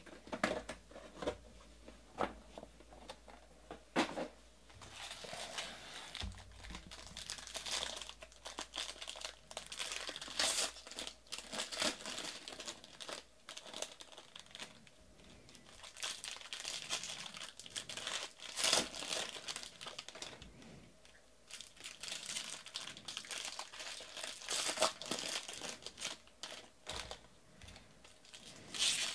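Foil wrappers of Bowman baseball card packs crinkling and tearing open, with irregular rustling and sharp clicks as packs and cards are handled.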